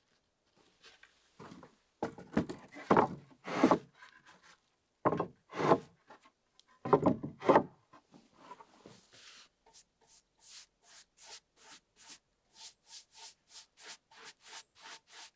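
Planed pine boards slid and knocked against each other as they are laid on a wooden pallet: loud wooden rubbing and clatter in the first half. Then a quick run of short, even scraping strokes, about three a second.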